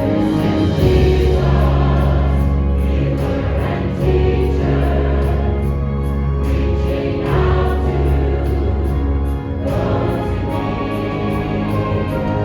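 Choral music: a choir singing held chords with accompaniment over long bass notes that change every two to three seconds.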